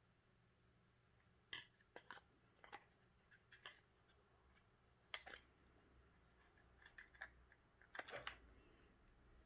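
Faint, scattered clicks and scrapes of hard plastic being handled, as a Li-ion cell pack is pushed and fitted into an Einhell tool battery's plastic housing; the loudest cluster comes about eight seconds in.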